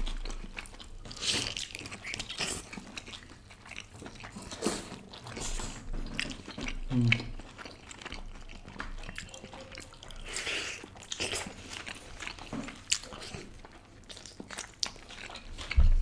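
Close-miked eating sounds of tandoori chicken: chewing and lip smacking with irregular wet clicks, as the roasted meat is pulled apart by hand.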